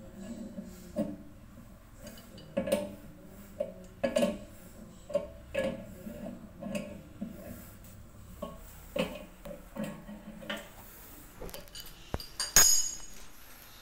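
Adjustable wrench clinking against the metal fitting of a toilet cistern's flexible supply hose as the connection is tightened, a short metallic clink about once a second. One sharper, louder knock near the end.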